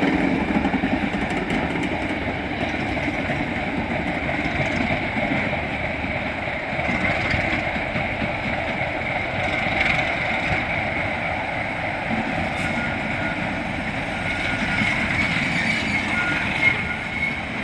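BR Class 26 diesel locomotive 26038 passing slowly and moving away, its Sulzer six-cylinder diesel engine running steadily, loudest at the start.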